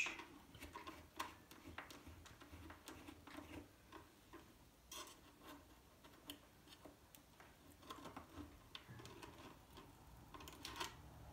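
Faint, scattered small clicks and ticks of a Torx screwdriver and metal tweezers working a display screw out of an iMac's frame, with a couple of sharper clicks along the way.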